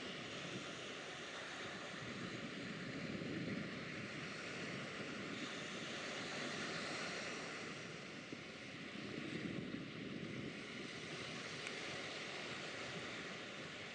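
Steady waterfront ambience of wind and choppy water, an even hiss that swells slightly about three seconds in and again about nine seconds in.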